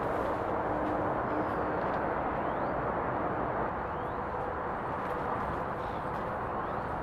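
Steady rumble of distant motorway traffic, with a few faint bird chirps over it.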